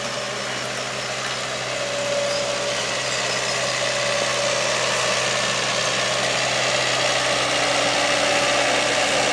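Skid steer engine running steadily, growing slowly louder.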